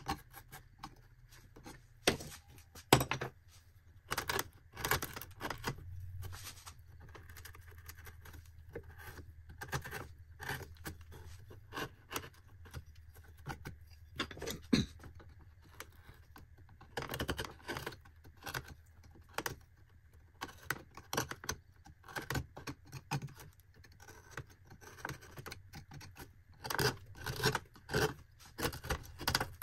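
Hand carving knife cutting and scraping into cottonwood bark in short, irregular strokes, with small clicks and snaps of chips coming away.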